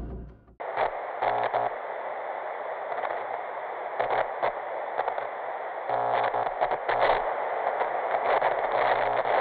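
Crackling static hiss, a TV-static glitch effect, cutting in sharply about half a second in. The hiss is thin and band-limited, and it stutters with short crackling bursts every second or two.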